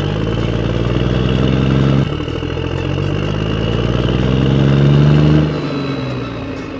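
An engine accelerating: its pitch climbs, drops sharply about two seconds in, climbs again and falls away about five and a half seconds in, like a vehicle pulling away and shifting up a gear.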